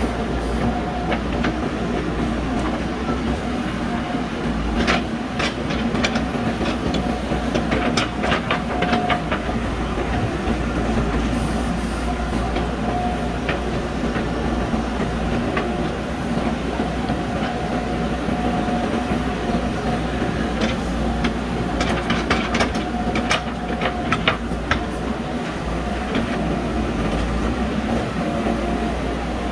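JCB backhoe loader's diesel engine running steadily under digging load, with a faint on-and-off hydraulic whine. Two spells of sharp clanks and knocks, about a fifth of the way in and again about three quarters through, from the bucket and arm at work.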